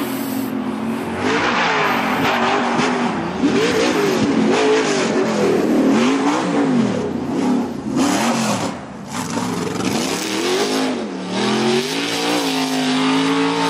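Pro2 off-road race truck's LSX V8 engine revving hard on the track, its pitch rising and falling again and again as the throttle is worked. It eases briefly about nine seconds in, then holds a steadier, climbing note near the end.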